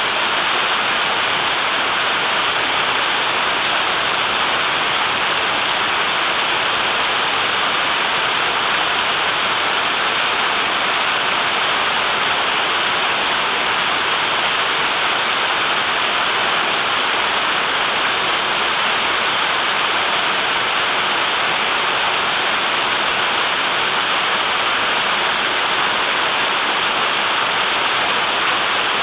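Small waterfall flowing strongly, a steady rushing of water with no change in level.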